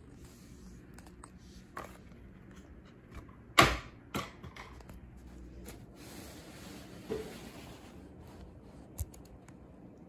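Quiet room noise broken by a few sharp knocks and clicks. The loudest comes about three and a half seconds in, a second follows just after four seconds, and smaller ones come near two, seven and nine seconds.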